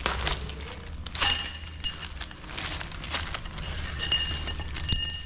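New steel leaf-spring U-bolts clinking together as they are handled: several sharp metallic clinks, each ringing briefly.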